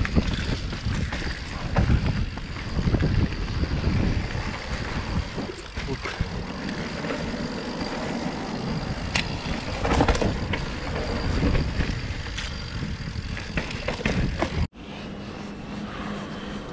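Yeti SB150 mountain bike ridden on a trail: wind buffeting the camera microphone over rumbling tyre noise and rattles from the bike, with a few sharp knocks. Near the end it cuts off abruptly and a quieter, steadier noise with a low hum follows.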